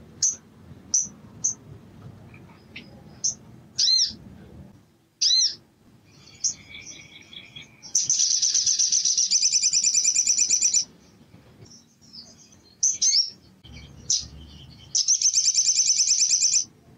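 Male sunbird singing: a run of sharp single chirps and swept notes, then a loud, rapid trill of about three seconds starting about eight seconds in. A few more chirps follow, then a second loud trill of nearly two seconds near the end.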